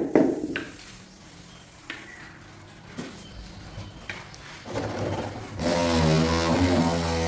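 A few sharp knocks at the start. From about five and a half seconds in, a motor starts up and runs steadily with a pitched hum.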